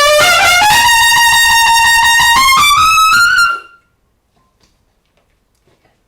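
Trumpet playing a fast run of repeated notes tongued with the back of the tongue alone, the 'cough' or K-stroke of multiple tonguing, each note popping. The notes climb in pitch and stop about three and a half seconds in.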